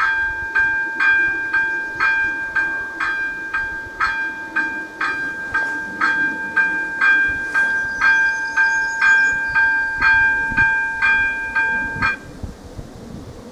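Electronic level-crossing warning bell (AŽD ZV-02) ringing about two dings a second as the crossing's warning signal, cutting off abruptly near the end.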